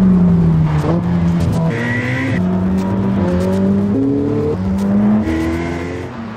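Recorded sports car engine sound accelerating through the gears: the engine note climbs and jumps to a new pitch every second or so at each gear change, then fades away near the end.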